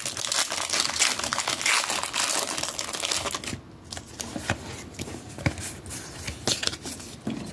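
Foil booster-pack wrapper crinkling and tearing as a Pokémon card pack is opened: dense crackling for about the first three seconds, then quieter handling with scattered clicks.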